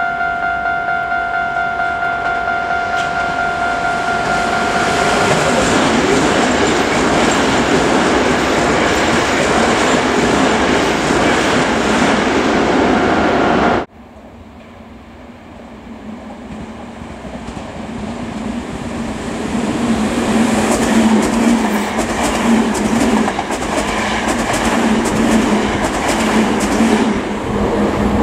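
Toei 5300-series electric commuter train running in on the line, with a steady high tone held through the first few seconds. After a cut about 14 seconds in, another train is heard approaching from a distance and growing louder, its wheels clattering over rail joints as it passes.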